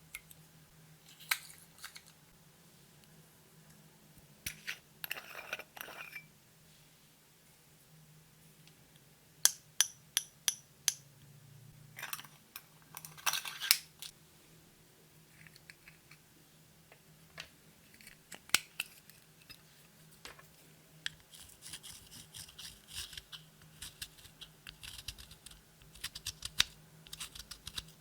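Sharp clicks and short crackly scraping bursts at irregular intervals, growing denser towards the end, from hands handling makeup and clear slime.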